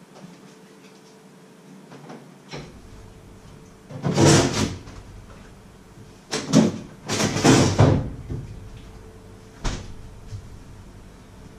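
Fridge-freezer door and drawer opened and shut: a burst of knocks and sliding scrapes about four seconds in, two more between about six and eight seconds, then a single click near the end.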